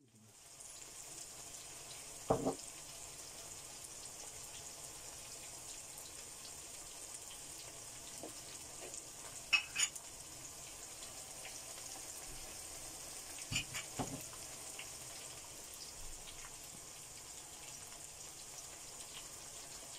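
Sliced onions frying in oil in a non-stick wok, a steady high sizzle, with a few short knocks against the pan about 2, 10 and 14 seconds in.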